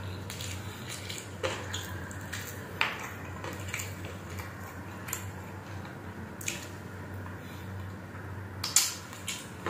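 Wet chewing and lip-smacking from a man eating saucy chicken adobo with his hands, with irregular short smacks and clicks; the loudest comes near the end, as he sucks meat off a chicken bone held at his lips.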